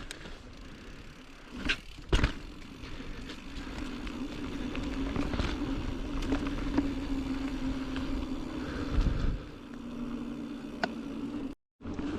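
Mountain bike rolling along a dirt singletrack trail, with steady tyre and trail rumble. Two sharp knocks from the bike come about two seconds in, and a steady buzzing hum from the bike runs through most of the ride.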